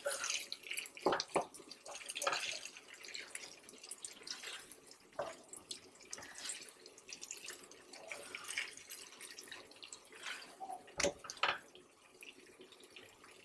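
Chopped ground beef and melting cheese sizzling and crackling on an electric griddle, with a few knocks and scrapes of a spatula on the griddle about a second in and again near the end.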